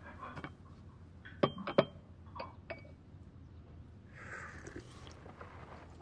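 Small porcelain teacups clinking against each other and the tea tray as they are picked up and set down: a few light, ringing clinks, then a soft brief noise about four seconds in.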